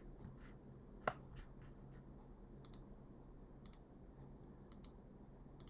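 Near-silent room tone with a handful of faint computer mouse clicks, the sharpest about a second in and a few softer ones later.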